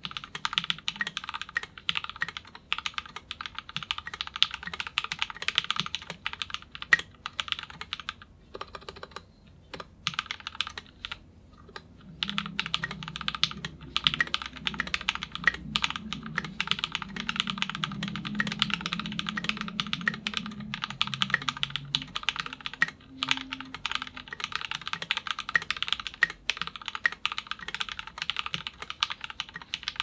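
Fast typing on a mechanical keyboard with lubed Cherry MX Black linear switches, 60 g, on a brass plate in a KBDFans 5 Degree aluminium case with Gateron stabilizers: a dense run of keystrokes. Near a third of the way in, the typing thins to a few scattered keystrokes for a few seconds, then picks up again.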